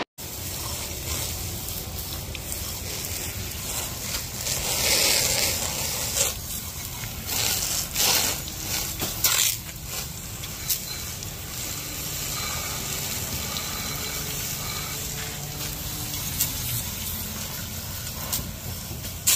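Water from a hose spraying over spinning reels and fishing rods to rinse the salt water off them: a steady hiss of spray with louder splashing now and then.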